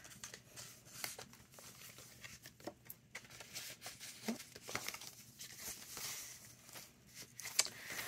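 Paper being handled: quiet rustling and crinkling with small ticks as a paper envelope is folded around a playing card and the journal's thick paper pages are shifted and turned.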